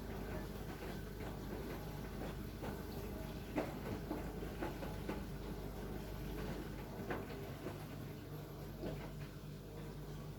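Cat moving about on a mat: irregular light taps and scratches, with one sharper tap about three and a half seconds in, over a steady low hum.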